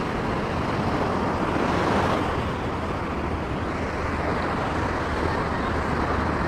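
Surf washing onto a sand beach as a steady rush, swelling slightly about two seconds in, with wind rumbling on the microphone.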